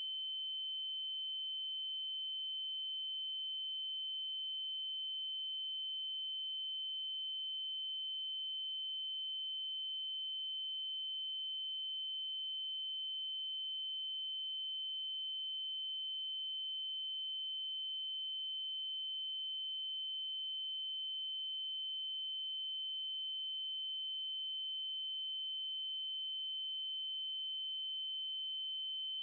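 Synthesized 3072 Hz triangle-wave tone: a single steady high pitch held without change, with faint higher overtones.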